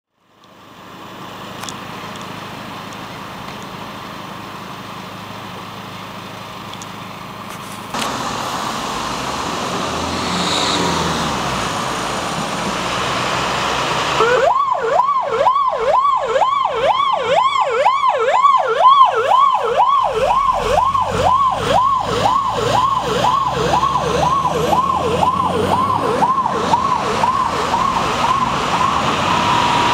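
Fire engine siren sweeping rapidly up and down, about two sweeps a second, as the fire engine turns out on an emergency call; the siren starts about halfway through, over steady engine noise.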